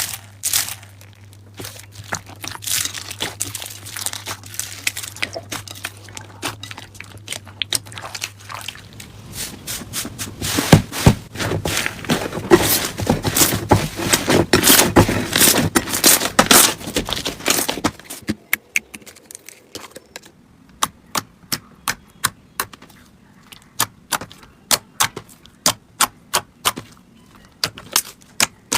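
Slime being squeezed and poked by hand: sticky crackling and clicking that is busiest about halfway through, then a steady run of sharp pops, about two a second, near the end.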